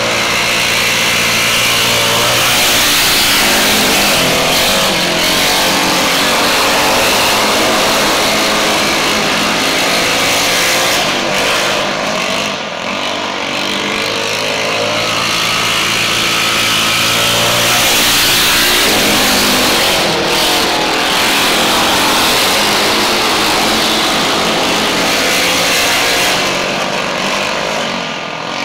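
Several racing engines running hard on the track, their pitch rising and falling as they accelerate and lift, with the sound swelling and dipping briefly a few times as the pack goes round.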